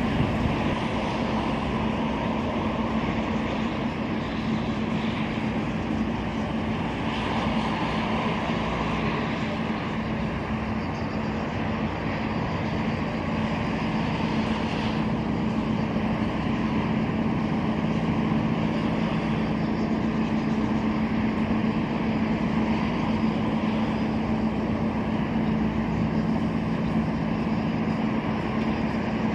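Ship's engines running with a steady low drone and a constant hum, over a haze of wind and water noise.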